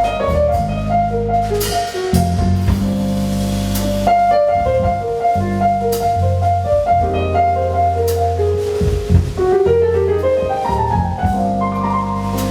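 Live jazz band playing: a keyboard melody with quick runs of notes over a low bass line and a drum kit with cymbal strikes.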